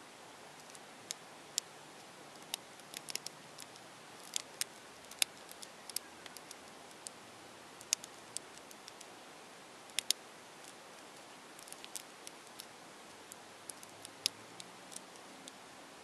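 Maru Nano 15 mm mini Rubik's cube being turned by hand, its tiny plastic layers clicking sharply and irregularly as they are twisted and snap into line.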